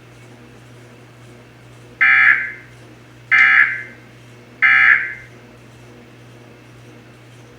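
Emergency Alert System end-of-message data tones: three short, loud bursts of screechy SAME digital data about 1.3 seconds apart, the signal that closes the test message.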